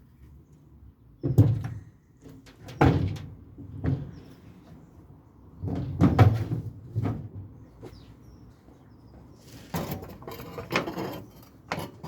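A heavy metal tool box being shifted and set down on a flatbed: a string of dull thumps and knocks, then a longer scraping slide near the end and a last knock.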